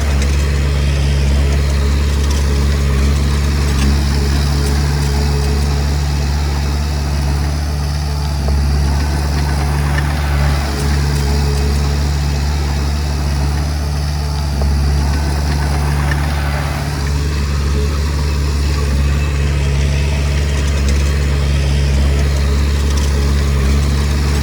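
Komatsu D20P bulldozer's diesel engine running steadily, a constant low drone.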